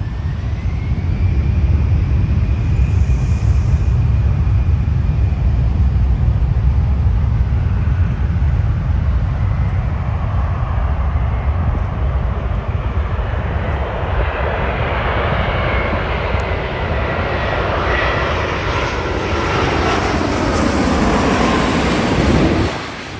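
Boeing 787-8 airliner on final approach, its jet engine noise building to a loud hiss and whine as it comes in low overhead, the whine falling in pitch as it passes, then cut off abruptly near the end. A steady low rumble fills the first half.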